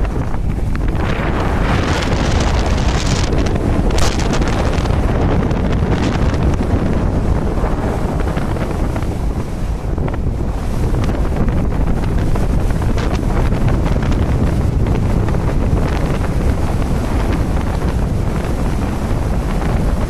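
Wind gusting over the microphone, loud and uneven, on top of the steady rush of sea waves around a moving tanker.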